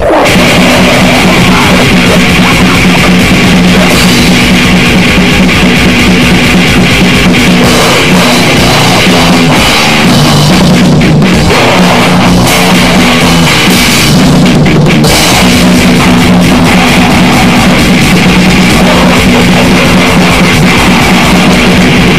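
Harsh, lo-fi noise-rock recording at a steady, very loud level: heavily distorted guitar chords that change every few seconds over a pounding drum kit.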